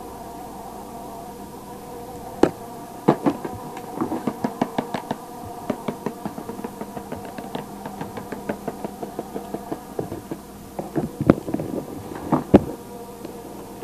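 An irregular run of sharp taps and clicks over a steady faint hum. The taps begin a couple of seconds in, come thickest in the middle, and a few louder knocks land near the end.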